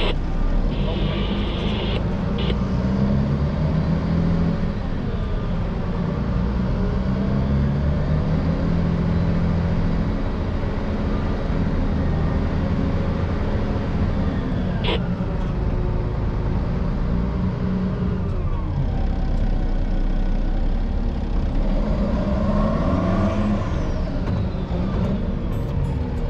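Volvo A30C articulated dump truck's diesel engine running under way. Its pitch drops a couple of times and climbs again near the end as the revs change, with one sharp click about halfway through.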